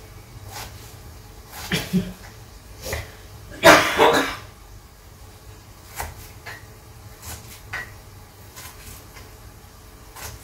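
Kitchen knife cutting food on a cutting board: scattered light taps and clicks of the blade against the board. About four seconds in there is one louder, short breathy rush.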